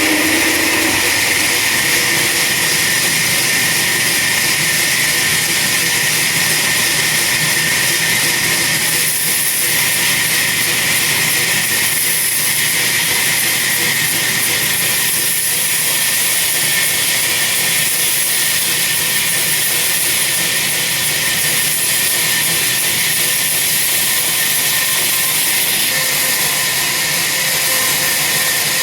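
Chainsaw running steadily at high speed, cutting into a large tree trunk.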